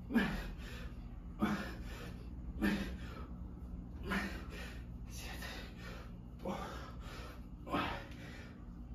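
A man breathing out hard in time with squat reps: a short, gasping exhale about every one and a half seconds, the heavy breathing of exertion.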